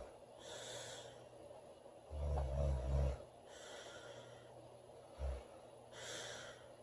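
A woman snoring in her sleep: one loud snore about two seconds in, lasting about a second, and a short snort near five seconds, with breathy hisses of air between.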